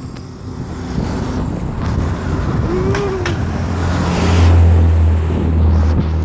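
Motor traffic passing close by on a highway, with one vehicle's low engine drone swelling to its loudest about four to five seconds in.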